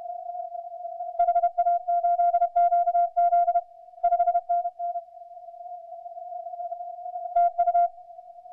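Morse code (CW) heard on a ham radio transceiver's receiver on the 40 m band: a loud keyed tone sends dots and dashes in two groups in the first half and a short burst near the end. Under it runs a steady, weaker tone at the same pitch.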